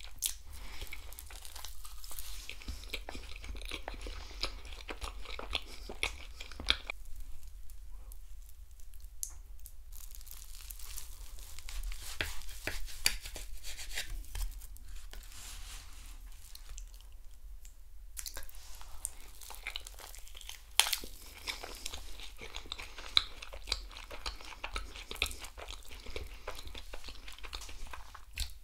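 Close-miked eating sounds: crunching and chewing of chocolate-glazed eclairs, with crisp crackly clicks. They thin out to a quieter stretch in the middle while an eclair is cut with a knife, then pick up again.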